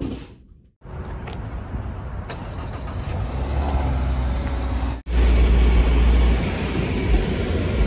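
Steady car noise: a low rumble with a hiss above it, which after a cut about five seconds in becomes a louder low rumble inside a car's cabin.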